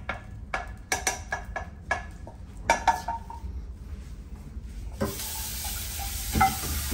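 A metal spoon scraping and clinking against a saucepan and bowl as cooked oats are spooned out. About five seconds in, a kitchen tap starts running steadily into the sink.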